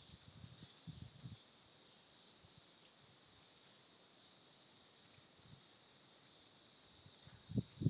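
Steady high chirring of insects in a summer field. Low thumps come during the first second or so and again near the end, the loudest just before the end.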